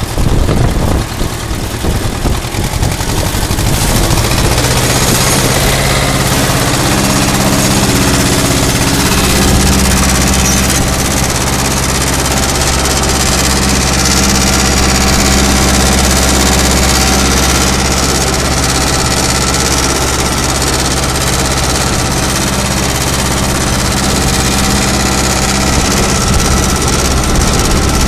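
Ursus C-330M tractor's two-cylinder diesel engine running loud under load as it pulls a cultivator. It wavers for the first few seconds, then holds a steady note.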